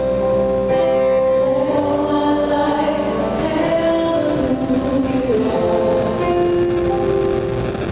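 Choir singing a slow song in long held notes, several voices sounding together.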